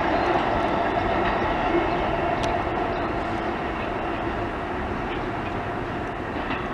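New York City subway train running away along the track, a steady rumble of wheels on rails that slowly fades.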